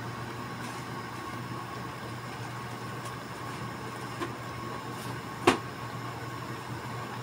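Pan of water simmering with tocino (sweet cured pork) in it, over a steady hum. There is a small pop about four seconds in and a sharp, louder pop a second and a half later.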